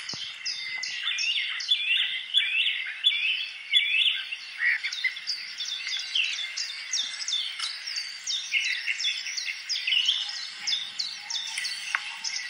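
A chorus of many small birds chirping together, with rapid, overlapping short calls, many of them falling in pitch.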